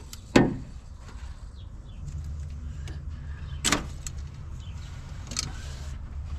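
A few sharp knocks and clanks of tools and parts being handled during disassembly of the engine bay. The loudest comes about half a second in, and another follows a little after halfway, over a steady low hum.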